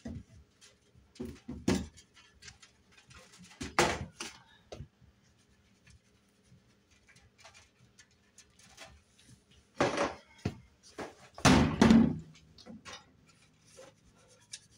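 Cleaning products being handled at an open oven: a spray bottle and a can of powdered cleanser knocking and thumping against the oven door, with light ticks and taps in between as the cleanser is shaken out. The loudest thumps come a few seconds in and again about three quarters of the way through.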